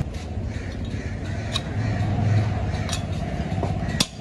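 A workshop machine running steadily with a low hum, with a few sharp metal knocks over it.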